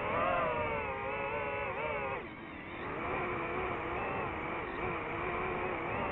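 DJI FPV drone's motors and propellers whining in flight, the pitch wavering up and down as the throttle changes, with a deeper dip a little past two seconds in.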